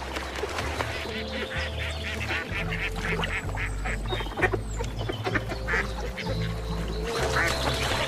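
Mallard ducks calling with repeated short quacking calls, over background music with a low bass line.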